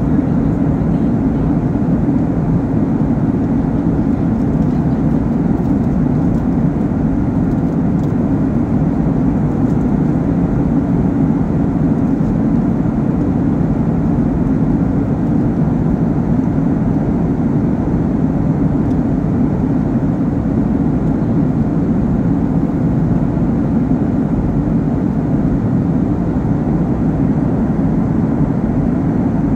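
Steady cabin noise of a Boeing 737 jet airliner at cruise: an even, deep rush of engine and airflow noise heard from inside the cabin.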